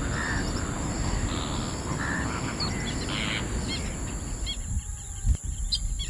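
Small birds chirping in short, high calls over a steady high-pitched insect drone and a low outdoor rumble. The rumble drops away about five seconds in, leaving the chirps clearer.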